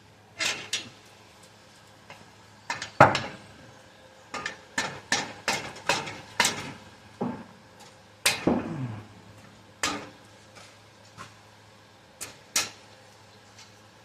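Irregular metal-on-metal clanks and taps from hand tools and exhaust parts, some ringing briefly, the loudest about three seconds in and again about eight seconds in.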